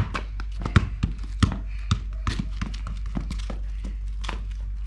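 A football being kicked and bouncing on a paved street: four sharp thuds in the first two seconds, the first the loudest, followed by lighter taps.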